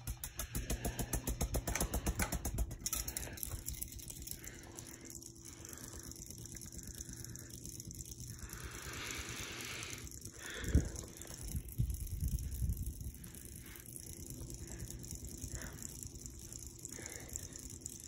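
Harbor Breeze classic-style ceiling fan running fast. For the first few seconds there is a rapid rhythmic flutter as the blades sweep past. It then settles to a quieter steady whir of motor and moving air, with a couple of short knocks around the middle.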